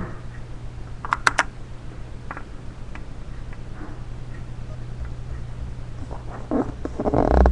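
Small plastic toy pieces clicking and tapping as they are handled, with a few sharp clicks about a second in and a busier run of clicks and rustling near the end, over a steady low electrical hum.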